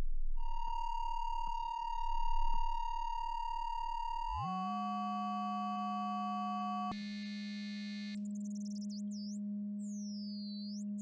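Modular synthesizer tone from the Schlappi Engineering Boundary's four-quadrant VCA, fed by the Angle Grinder oscillator's sine wave. It starts as a steady, pure high tone. About four seconds in it drops into a lower, buzzing, metallic tone thick with side tones: the sine wave modulating the Boundary for a combined AM/FM, ring-modulation effect. Near the end, high whistling partials sweep up and down.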